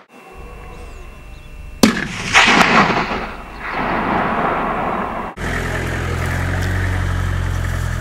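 A single hunting-rifle shot about two seconds in, followed by a longer rolling rumble. From about five seconds in, the engine of an open-top 4x4 runs steadily with a low hum.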